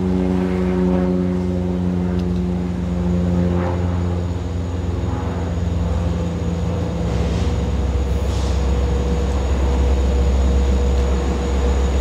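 A diesel locomotive's engine running with a strong steady drone. Its note fades out about five seconds in, leaving a low rumble. Two short hisses of air come a little after the middle.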